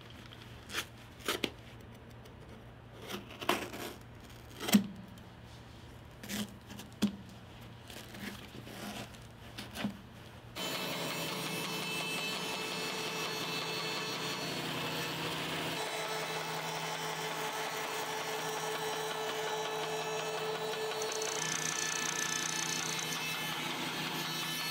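Scattered clicks and knocks of a leather sneaker being handled on a table. About ten seconds in the sound changes abruptly to a band saw running steadily as it cuts through a shearling-lined leather sneaker and its rubber cupsole.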